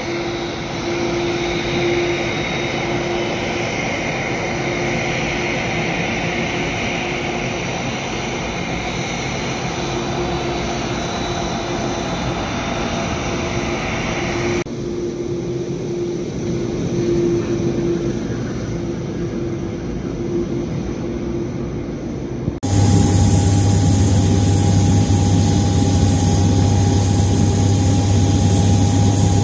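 Airliner jet engines running at taxi power, a steady whine and rush, first from a Boeing 787-9. About three-quarters of the way through the sound cuts abruptly to an Airbus A330-200's engines at taxi power, louder, with a strong deep hum and a high whistle.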